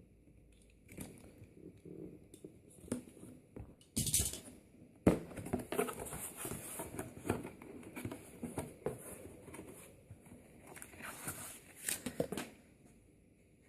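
Cardboard box and plastic packaging being handled and opened: rustling and crinkling with many small clicks and knocks, a loud burst about four seconds in and a sharp knock about a second later.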